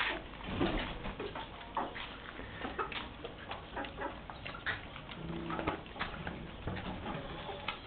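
Puppies scuffling and playing on concrete: scattered clicks and scrapes from their paws and claws, with a short animal call about five seconds in.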